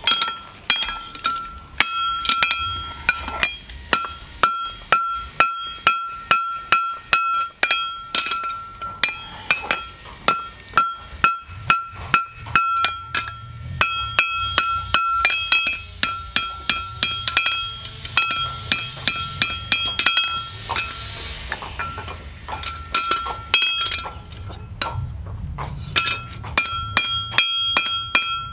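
Farrier's hammer striking steel, most likely a horseshoe being shaped on an anvil. The blows come in runs of about two a second with short pauses, and each one rings with a clear metallic tone.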